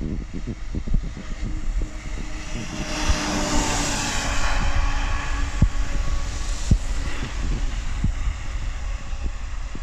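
Magirus-built Eurofire 4x4 fire engine driving past on a wet road. Its engine and the tyre hiss swell to a peak about three to five seconds in, then fade as it moves away. Wind buffets the microphone throughout.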